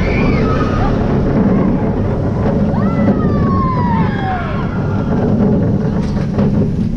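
Cheetah Hunt steel roller coaster train running at speed through a rolling inversion, with a loud, steady rush of wind over the front-row camera. Riders' whoops slide up and down over it, the longest falling away from about three seconds in.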